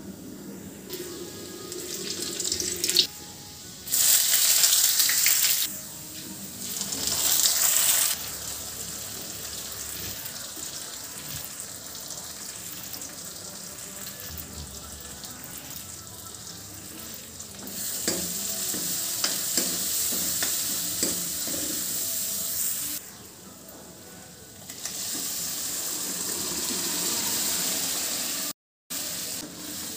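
Tadka sizzling in hot oil in an aluminium kadai: cumin seeds and dried red chillies, then chopped onion and ground spices frying, with two loud bursts of sizzle a few seconds in and a steady sizzle later.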